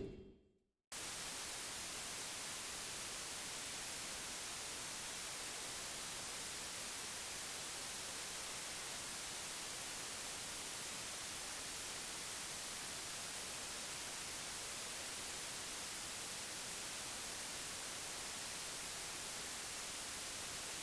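Steady, even static hiss like a detuned TV set, starting suddenly about a second in after a moment of silence and holding at one level without change.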